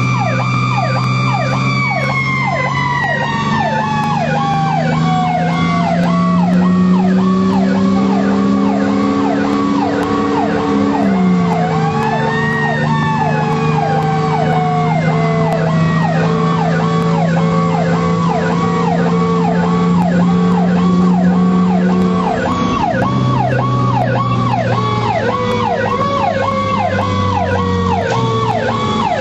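Fire engine's electronic siren yelping steadily while a second, winding siren tone slowly falls in pitch, is spun up again about twelve seconds in and winds back down. Under the sirens the truck's engine pulls hard, its pitch climbing then dropping at a gear change about eleven seconds in.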